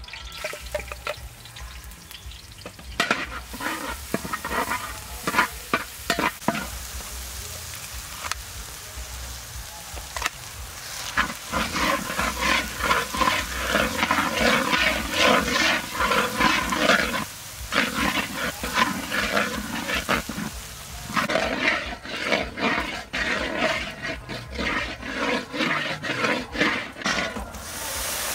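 Metal spatula scraping and stirring around a large metal wok, tossing ground spices and paste as they fry, in rapid uneven strokes with a few short pauses.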